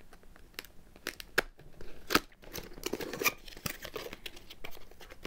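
Product box and its packaging being opened by hand: irregular tearing, crinkling and sharp clicks, the loudest a little after two seconds in.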